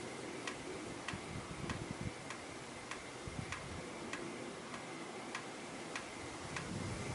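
Steady, regular ticking, about three ticks every two seconds, over a faint continuous hiss.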